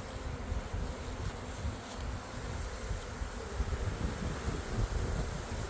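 A swarm of honey bees buzzing around a hanging cluster, a dense steady hum, under an uneven low rumble on the microphone.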